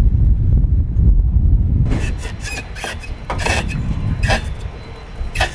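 Low wind rumble on the microphone, then, from about two seconds in, a run of short, irregular scraping and rubbing strokes from hand tools working on the nose landing gear of a Douglas A-26 Invader.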